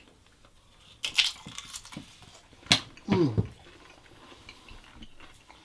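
Crunching of a crisp papadum: a crackly crunch about a second in and a sharp crack near the middle.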